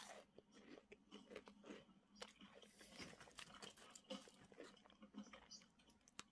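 Faint, irregular crunching of a puffed snack being chewed, with the foil snack bag crinkling as a hand reaches in for more.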